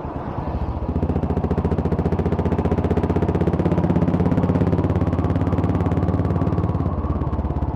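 Royal Enfield Classic 350's single-cylinder engine through a Vardenchi Retro C4 CL aftermarket exhaust, ridden at low revs: a steady, even exhaust thump that picks up a little about a second in and then holds.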